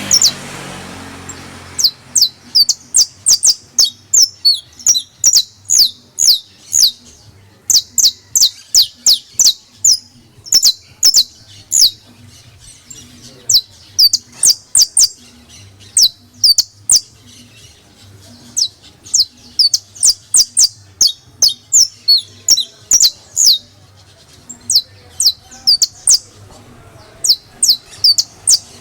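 Domestic canary (canario criollo) singing: long phrases of rapid, high-pitched chirps and trills, broken by short pauses.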